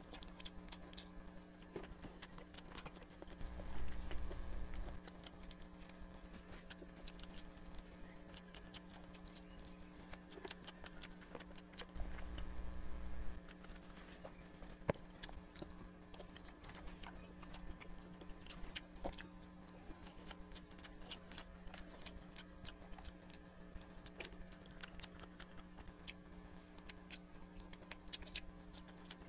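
Close-miked mouth sounds of biting and chewing grilled skewered food: many small, irregular wet clicks over a steady low hum. Twice, a louder low rumble lasts about a second.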